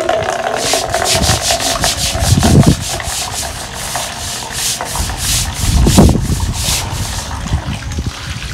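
Hand scrubber rubbing hard over wet, green-coated concrete in quick repeated strokes, about three a second, scrubbing off a thick built-up layer.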